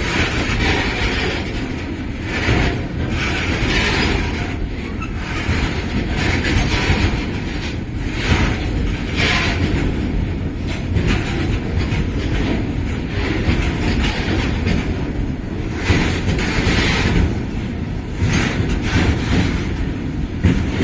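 Tank wagons of a long freight train rolling past slowly: a steady low rumble with irregular clatter from the wheels on the rails.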